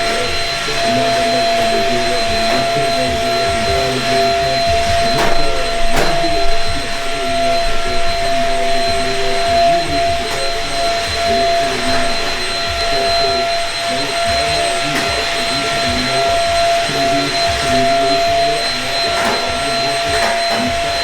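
Vacuum cleaner running steadily, its motor giving a constant whine over a rushing noise, with a couple of sharp knocks about five and six seconds in.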